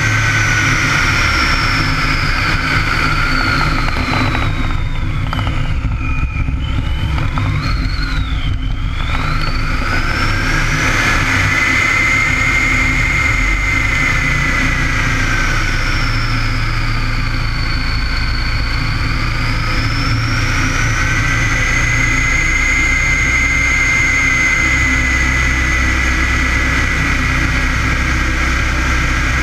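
De Havilland Tiger Moth's Gipsy Major four-cylinder engine and propeller running in flight, with wind rushing over the wing. The engine note sags and climbs back twice, a few seconds in and again past the middle, as the biplane goes through its aerobatic manoeuvres.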